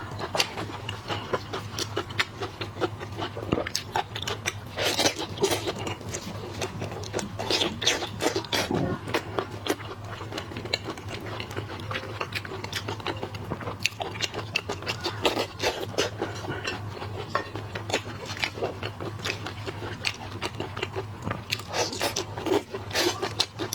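Close-up eating of shrimp and crab: shells cracking, crunching and scraping, with chewing, as dense irregular clicks throughout. A steady low hum runs underneath.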